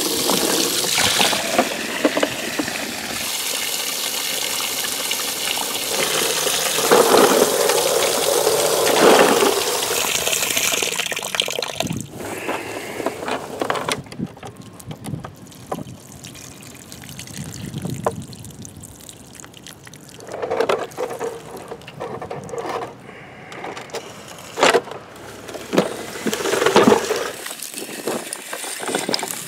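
Running water spraying and splashing with a steady hiss for the first twelve seconds or so, then quieter, with scattered clicks and knocks as the toy trucks are handled in the grass.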